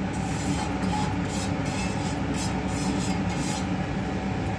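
Dry roasted vermicelli scraping and rustling as it is pushed by hand off a metal frying pan into a pot of sugar syrup, in repeated strokes over a steady low rumble.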